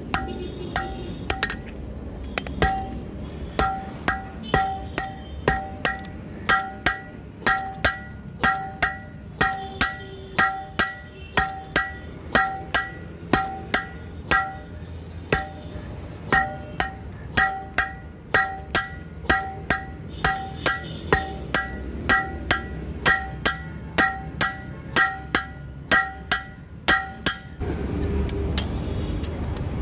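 Hand hammer striking a red-hot leaf-spring steel blade on an anvil, about two blows a second, each with a bright metallic ring. The hammering stops near the end and a low rumbling noise takes over.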